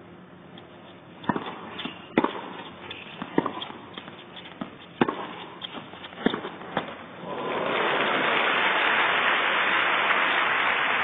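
Tennis ball struck back and forth in a baseline rally, a sharp pop about every second. About seven and a half seconds in, crowd applause swells up as the point ends and carries on steadily.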